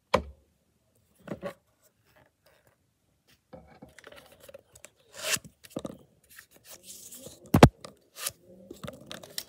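Plastic toy blaster and foam darts handled close to the microphone: scattered clicks and knocks with some rubbing and scraping, the loudest a sharp knock about three quarters of the way through.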